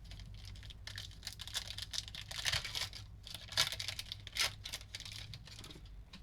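A trading-card pack wrapper being torn open and crinkled while cards are handled, heard as irregular rustles and small clicks with several louder crinkling bursts.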